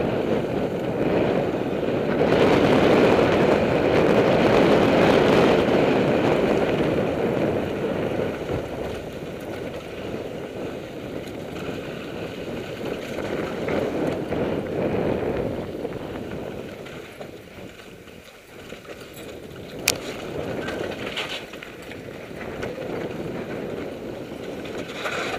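Mountain bike riding noise: wind rushing over the bike-mounted camera's microphone and tyres rolling over dirt and gravel, loudest in the first several seconds and easing off later. One sharp click comes about twenty seconds in.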